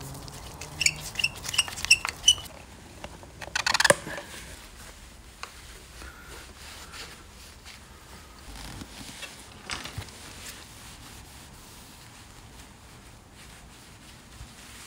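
Small metal parts being handled during motorcycle assembly. There is a quick run of light, ringing metallic taps, then a short clatter about four seconds in, followed by quieter scattered clicks and handling.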